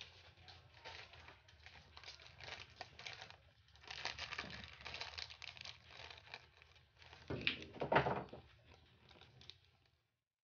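Irregular crinkling, rustling noise made of many small crackles, loudest a little past seven seconds in.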